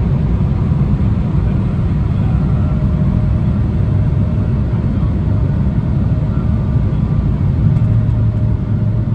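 Cabin noise inside an Embraer 175 jet descending with flaps out: a steady, loud, low rumble of airflow and the wing-mounted turbofan engines, with faint steady whine tones above it.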